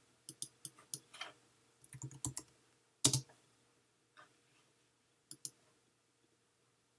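Computer keyboard keys tapped in scattered strokes, a short run of typing in the first few seconds with one louder keystroke about three seconds in, then a couple of faint clicks about five seconds in.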